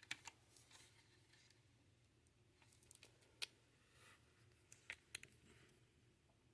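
Near silence with a few faint, sharp clicks and taps of parts being handled: two near the start, two about three seconds in, and two about five seconds in.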